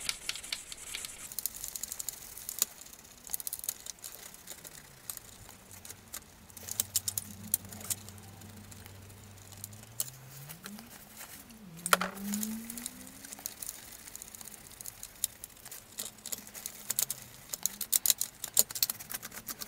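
Kitchen cloth rubbing and scraping at old sticker residue on a hard plastic toy car body, with fingertips picking at the surface: irregular small scratches and clicks. A faint low hum rises and falls in pitch in the middle.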